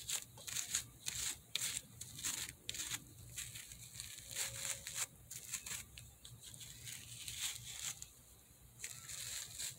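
Hairbrush strokes through a Failfix doll's curly synthetic hair, a short rasping scrape about twice a second, close to the microphone.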